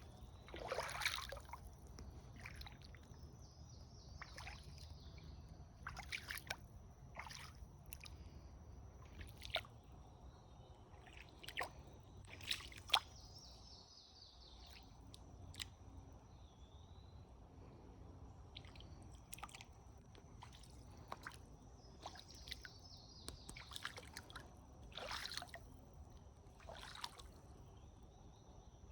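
Water dripping and splashing at irregular intervals, each drop a short sharp plink, over a faint low outdoor rumble. A thin, steady high-pitched insect trill runs underneath.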